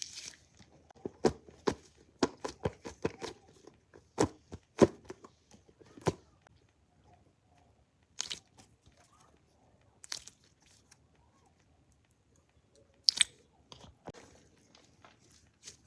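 Irregular crisp crunches and crackles: a quick run of them in the first few seconds, then single sharp crunches spaced a second or more apart.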